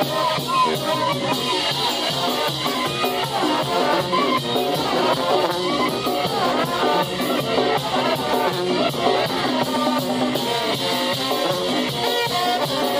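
Brass band playing in the street: sousaphone, trumpets and a horn with a bass drum keeping the beat.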